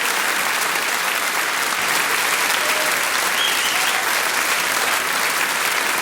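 Audience applauding: many people clapping steadily together, a dense even patter of hand claps.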